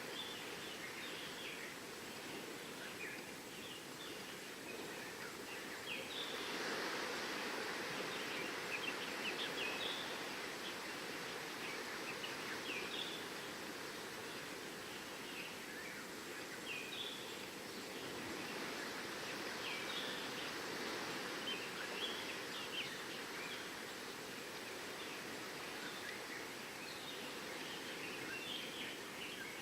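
Steady rush of surf on the shore, swelling twice, with many short bird chirps scattered throughout.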